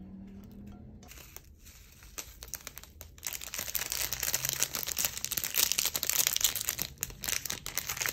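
Plastic seasoning sachet crinkling and rustling as sesame seeds are shaken out of it onto a plate: a rapid, dense patter of rustles and small ticks, much louder from about three seconds in, that stops abruptly near the end.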